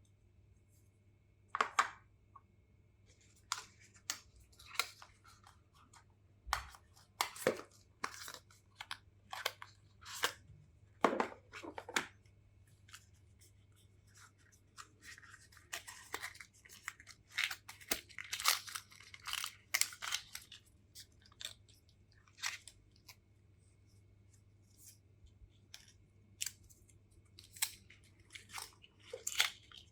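Cardboard and plastic packaging being handled and opened: irregular rustling, scraping and clicking over a faint steady low hum.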